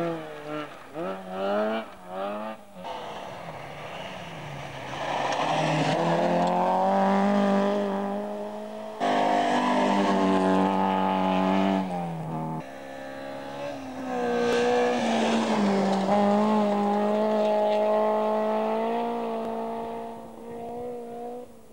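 Rally cars at full throttle on a gravel special stage, engines revving high. In the first seconds the pitch climbs repeatedly through quick gear changes, then long sustained high engine notes as cars approach and pass close by, one after another with abrupt cuts between them.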